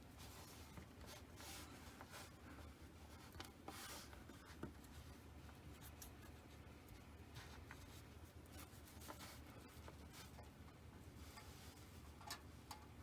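Faint scratchy rubbing and handling noises, with a couple of light clicks near the end, as small magnets and parts are worked by hand on a model locomotive's smokebox door.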